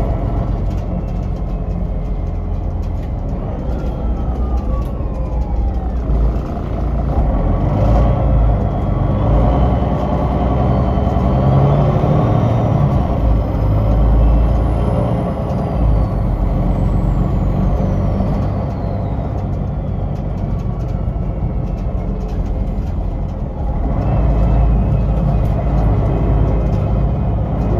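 Cabin sound of a 2005 MAN NL263 Lion's City city bus under way, its MAN D2866 inline-six diesel and Voith Diwa automatic gearbox giving a steady low rumble, with whines that glide in pitch, one falling a few seconds in and others rising later. It grows louder from about seven seconds in, eases off past the middle, and picks up again near the end.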